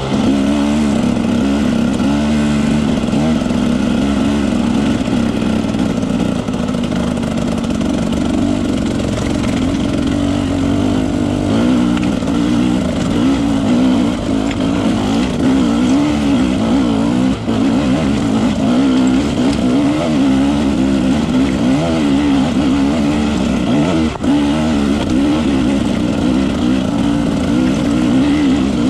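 Off-road motorcycle engine pulling up a rocky climb, its note rising and falling constantly as the throttle is worked, with a couple of sharp knocks along the way.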